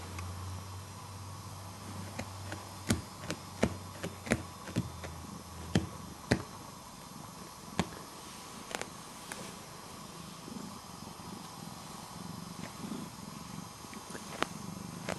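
Tabby cat purring close up, a low steady purr that turns into a pulsing rhythm in the second half. About a dozen sharp clicks come through, most of them in the first half.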